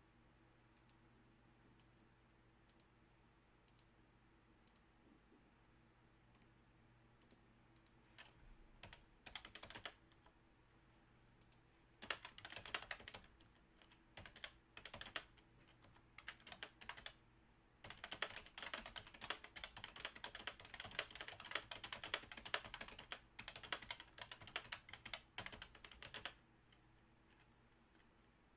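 Typing on a computer keyboard in quick runs of keystrokes. It begins about eight seconds in, after a few faint scattered clicks, and stops a couple of seconds before the end.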